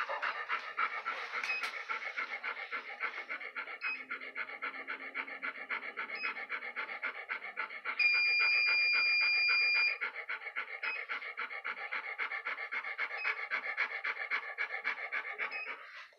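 A dog panting fast and steadily. A handheld acupuncture laser beeps briefly and high about every two seconds, and gives one steady tone lasting about two seconds near the middle, the loudest sound.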